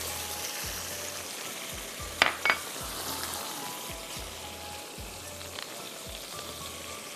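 Ketchup-and-chili sauce sizzling steadily in a non-stick wok on a gas burner, with two sharp clicks about two seconds in.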